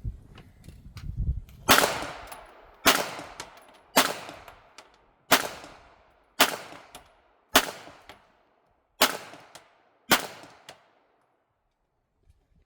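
Eight gunshots fired at a steady pace, about one a second, each followed by a short echo.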